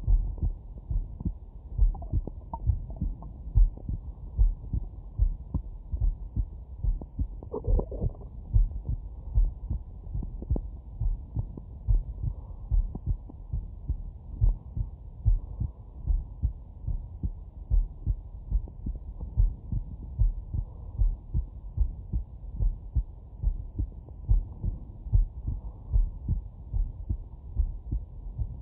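A man's heartbeat picked up through a Stemoscope digital stethoscope: a regular lub-dub thump about once a second, muffled and deep, with one skipped beat near the end.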